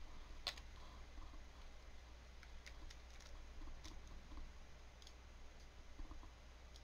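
Near silence: a steady low hum with a handful of faint, scattered clicks, the clearest about half a second in.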